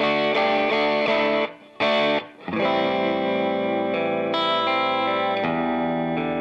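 Electric guitar played through an MXR Sugar Drive overdrive pedal, a Klon-style clone, with a driven tone: choppy strummed chords for about two seconds, then chords left to ring out.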